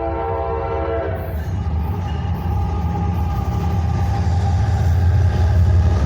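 Diesel locomotive air horn sounding a chord that cuts off about a second in, followed by the CSX freight train's diesel locomotives rumbling steadily louder as they approach.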